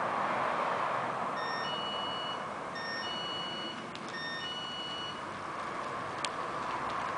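A short electronic beeping melody of a few steady notes, played three times about 1.4 s apart, over a steady hiss of outdoor background noise; a single sharp click near the end.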